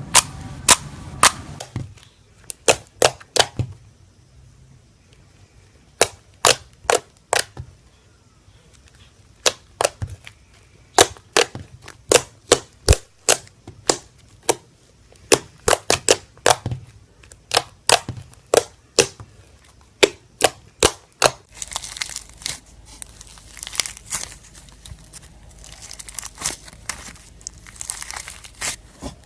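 Slime being squeezed and poked, giving sharp pops of trapped air in quick groups of two to four. About two-thirds of the way in, this gives way to a busy crinkling crackle.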